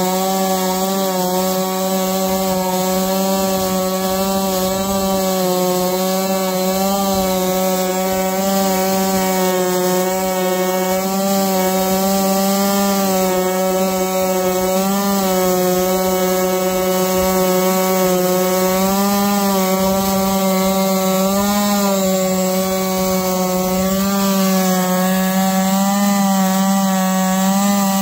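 Holzfforma G660 two-stroke chainsaw, a Stihl MS660 clone, running at steady high revs on a chainsaw mill, ripping lengthwise through an eastern red cedar log. Its pitch dips slightly now and then as the chain takes load.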